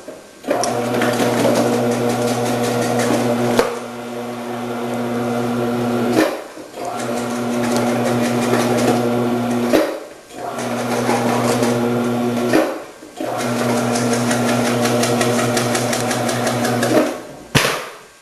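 A commercial vegetable processor's electric motor running as peppers are sliced through its cutting disc. It gives a steady hum with a chopping rasp on top, and stops briefly every three to four seconds between runs.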